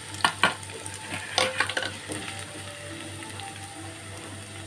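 Fennel seeds, ginger and crushed garlic sizzling in hot oil while a wooden spatula stirs them in a pan, with a few sharp scrapes in the first two seconds.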